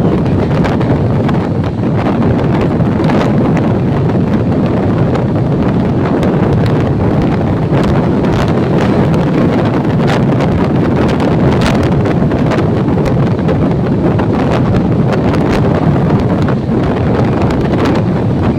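Express train running through a station at speed close by: a steady, loud rumble with irregular sharp clacks from the wheels on the rails, and wind buffeting the microphone.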